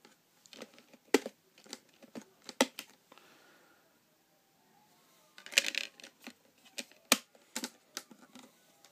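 Sharp clicks and taps of a Blu-ray steelbook's plastic disc tray being handled as the disc is lifted off its hub and pressed back on, with a denser run of clicks about halfway through.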